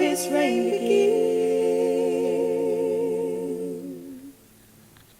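Layered a cappella voices holding the song's closing chord with vibrato, shifting once about a second in and fading out about four seconds in.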